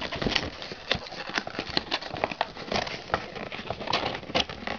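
Rubik's Cube packaging being worked open by hand: a quick, irregular run of clicks, taps and crackles as the box is pried and handled.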